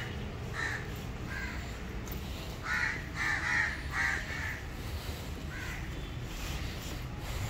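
Crows cawing: several short caws, with a quick run of about five in the middle, over a steady low background rumble.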